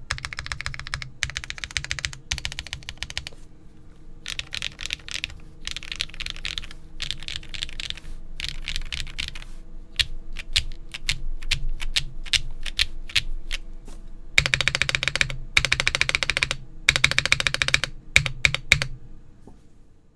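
Mechanical keyboard typing on a Geonworks Frog TKL with lubed Akko V3 Cream Yellow linear switches, an aluminium plate, no case or plate foam, and GMK cherry-profile keycaps. Runs of fast typing are broken in the middle by a stretch of slower single key presses, then louder fast bursts follow before the typing stops just before the end.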